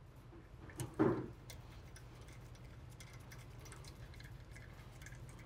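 Faint, scattered small ticks and clicks as the brake rotor's set screw is threaded into the hub by gloved fingers, with one soft knock about a second in, over a low steady hum.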